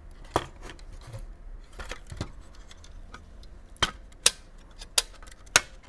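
Scattered sharp clicks and clacks of plastic and metal, about six of them with the loudest around four seconds in, as a modem's circuit board assembly and its metal enclosure are worked loose from the plastic housing by hand.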